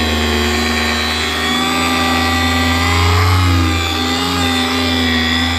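Makita orbital polisher running in spin mode while buffing compound into a plastic headlight lens, cutting off the yellowed haze. Its motor gives a steady hum and whine that wavers slightly in pitch as it is pressed against the lens.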